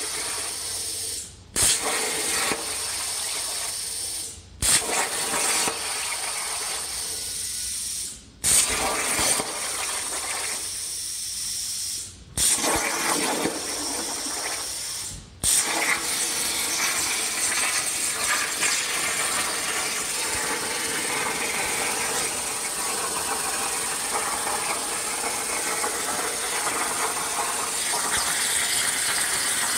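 Hypertherm Powermax85 plasma cutter on a CNC table cutting 3/16-inch mild steel: a harsh, loud hiss from the arc. In the first fifteen seconds it cuts out five times and restarts, each restart opening with a sharp burst as the torch pierces the plate for the next hole. After that it runs unbroken through a long cut.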